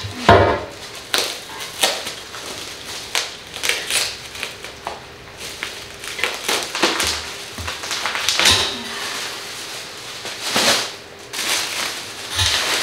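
Plastic stretch wrap and bubble wrap being cut, pulled off and crumpled, heard as irregular rustles and crinkles of varying loudness.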